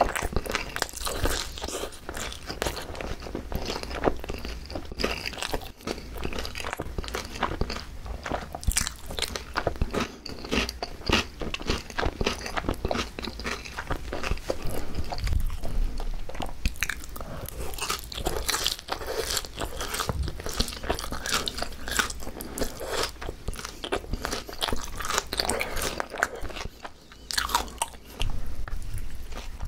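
Close-miked chewing and crunching of boneless fried chicken (pa-dak) with raw shredded green onions, a dense run of wet, crackly bites and chews.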